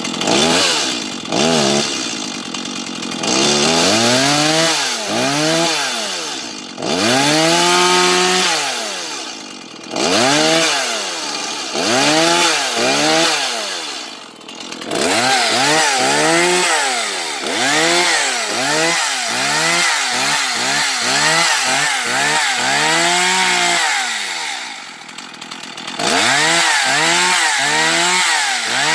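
New Stihl MS 180 chainsaw's two-stroke engine running unloaded while the throttle is blipped over and over, each rev climbing and dropping back to idle. The first revs are longer. Then come quick short ones about one and a half a second, a brief spell at idle, and more revs near the end.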